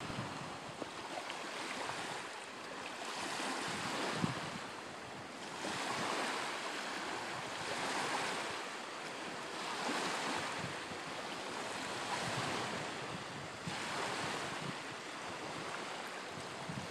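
Small waves washing against the shore, each wash swelling and fading every two seconds or so, with some wind; a faint knock about four seconds in.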